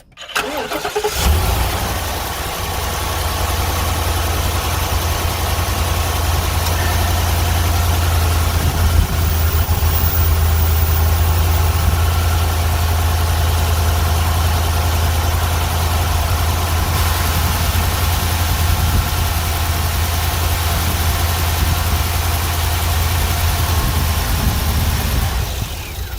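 Ford F-250's 7.3-litre gasoline V8 starts about a second in and idles steadily, then drops off near the end. It is run briefly after an oil change to circulate the fresh oil, because the dipstick was reading low.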